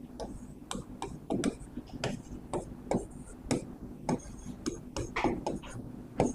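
Writing on a board: irregular short taps and scrapes, a few a second, over a faint low steady hum.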